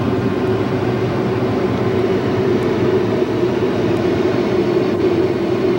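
Automatic car wash machinery running, heard from inside the car: a loud, steady mechanical noise with a constant drone.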